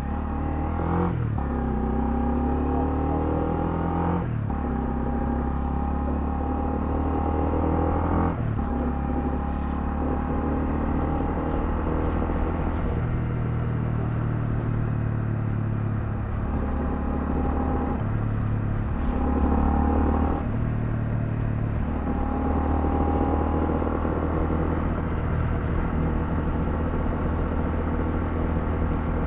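Honda CL250 motorcycle engine pulling through the gears. Its pitch rises and drops at each upshift, three times in the first nine seconds, then it runs at a steadier cruise with a few small changes in engine speed.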